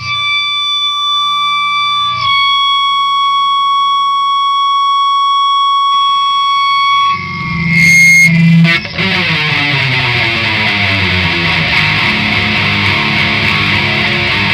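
Distorted electric guitar music: a single high note held for about seven seconds, then the full heavy, distorted rock music comes in about nine seconds in.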